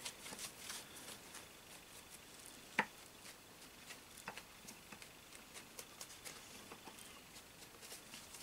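Faint soft rustling and tapping of a paper tissue rubbing and dabbing wet black paint off the foil-tape surface of a paper mache form, with one sharper click about three seconds in.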